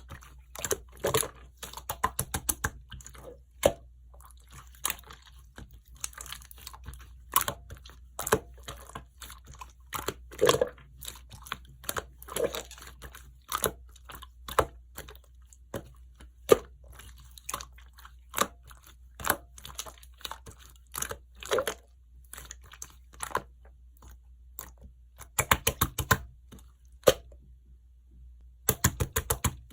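Clear slime being squished and kneaded, giving irregular sticky clicks and pops, with a couple of quick runs of clicks near the end.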